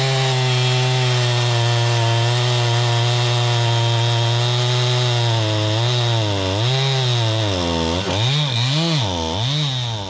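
STIHL 500i two-stroke chainsaw running at high speed in a cut through a big log. Its pitch holds steady, then for the last four seconds rises and falls over and over before dropping away at the end. The chain is dull and needs sharpening.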